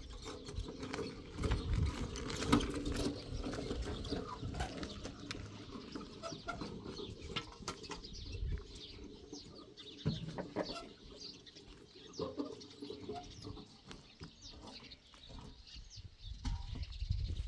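Short high bird chirps among scattered clicks and knocks, over a low rumble.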